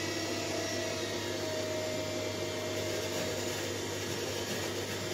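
Zoppas PMV1208B front-loading washing machine with its drum spinning fast, a steady whir over a motor hum.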